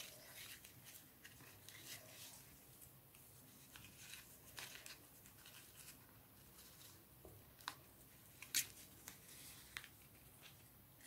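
Faint rustling and soft handling noise of a polyester ribbon being tied into a bow against a paper card, with a few sharper ticks near the end.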